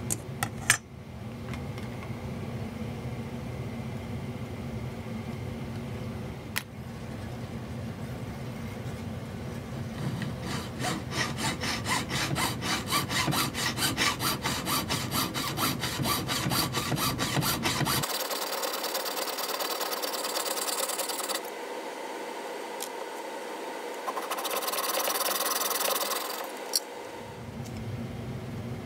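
Jeweller's saw cutting brass wire on a wooden bench pin: quick, even back-and-forth strokes, about four a second. These are followed by two shorter spells of higher rasping.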